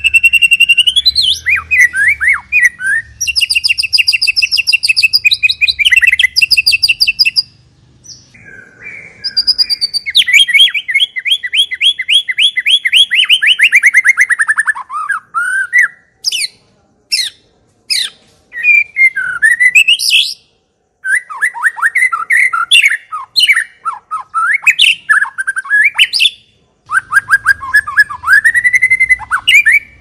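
White-rumped shama (murai batu) singing a long, varied song: rapid trills, fast runs of repeated notes and swooping whistled phrases, broken by short pauses.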